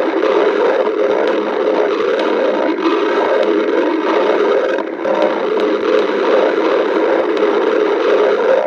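A hungry person's stomach growling: a continuous, irregular rumbling gurgle that barely lets up.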